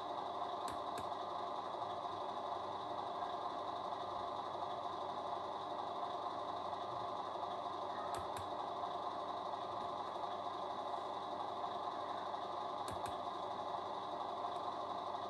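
Simulated diesel truck engine idle from the RC Volvo FH16 model's electronic sound system, running steadily at an even pitch with a few faint clicks.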